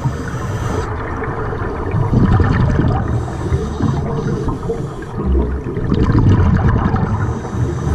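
Scuba divers breathing through regulators underwater: exhaled air bubbling and gurgling in surges that swell and ease every few seconds.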